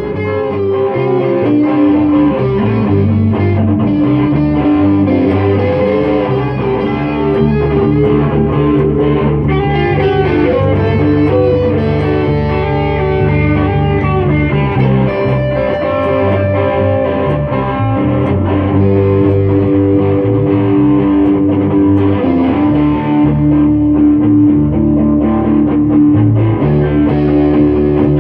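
Instrumental break of a song, led by guitar, with held and bending notes over a steady low accompaniment.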